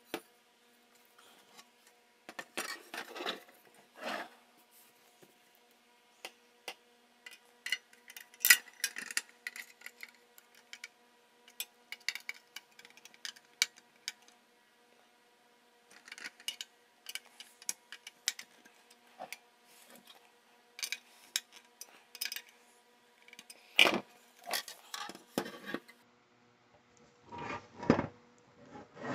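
Hands working on small tool parts: scattered sharp clicks and taps with short stretches of rubbing or scraping, over a faint steady hum. The sharpest clicks come a little over a third of the way in and again most of the way through.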